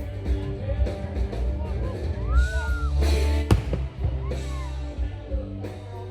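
Music with singing over a steady heavy bass, with one sharp bang about three and a half seconds in.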